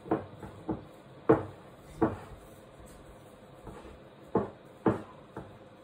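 Wooden spoon stirring and mashing a thick mix of ground chicken, pumpkin and sweet potato in a ceramic bowl, knocking against the bowl about eight times at uneven intervals.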